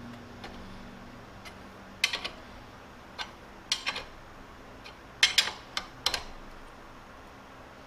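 Sharp metallic clicks and clinks, one to three at a time, as a nut is spun down by hand on a clamp stud, about nine in all over a few seconds.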